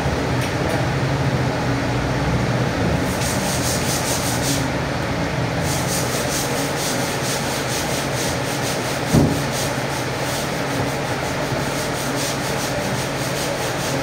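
A butcher's knife making quick, repeated scraping strokes, about four or five a second, with a short pause and then a longer run. Under it is a steady low hum, and there is one knock about two-thirds of the way through.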